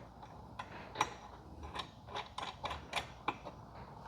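Light, irregular metallic clicks and taps, several a second, of small hardware being handled: a lock nut being put onto a bolt through the steel rack bracket.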